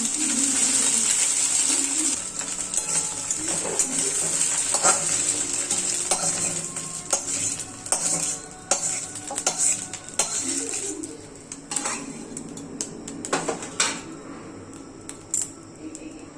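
Egg tadka masala sizzling in a pan while a metal spoon stirs and scrapes it, clinking against the pan. The frying hiss is strong for the first couple of seconds, then fades, leaving mostly spoon knocks and scrapes.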